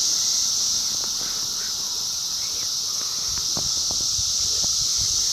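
A chorus of cicadas singing, a steady high-pitched drone, with a few light thuds in the second half.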